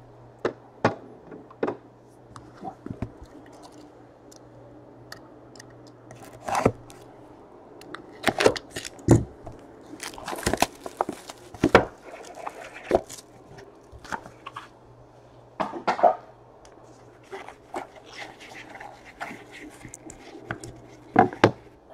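Cardboard trading-card boxes being handled and opened by hand: scattered taps, knocks, scrapes and crackles of cardboard, busiest in the middle, with a foam insert pulled out of a box near the end. A steady low hum runs underneath.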